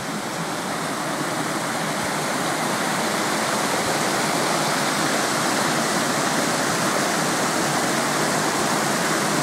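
Water rushing steadily down a canal lock's overflow weir into a narrow channel, growing a little louder over the first few seconds.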